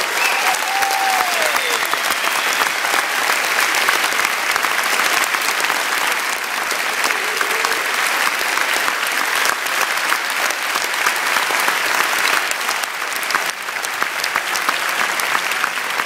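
Audience applauding: dense, steady clapping that eases slightly after about thirteen seconds.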